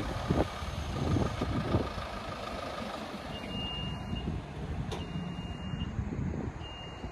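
An electronic beeper sounds three steady, high-pitched beeps, each just under a second long and about a second and a half apart, over a low machine rumble.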